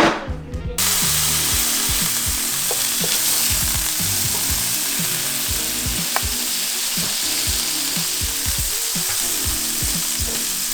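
Ground-beef smash patties sizzling in a hot pan. The sizzle starts abruptly just under a second in, right after a knock, and then holds steady.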